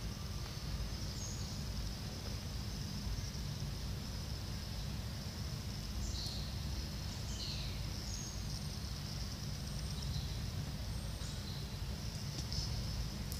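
Outdoor background ambience: a steady low rumble and a steady high hiss, with a few short bird chirps, mostly a few seconds in and again near the end.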